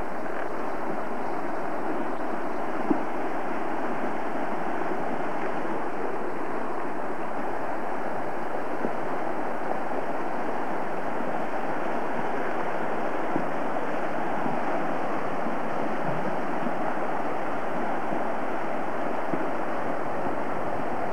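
Steady rush of a fast, silt-laden mountain river running over rocks, a constant even noise of turbulent water.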